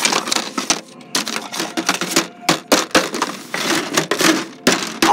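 Rapid, irregular clicking and crackling, with several sharper knocks among the clicks.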